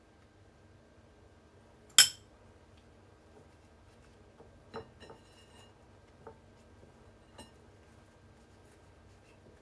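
Kitchenware clinking: one sharp, loud clink about two seconds in, then four or five lighter clinks, one of them ringing briefly.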